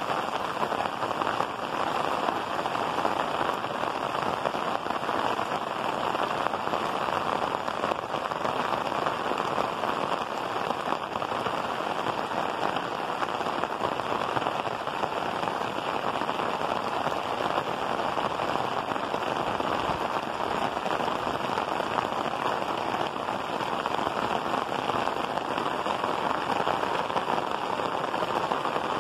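Heavy rain falling steadily on clay tile roofs, a dense, even hiss.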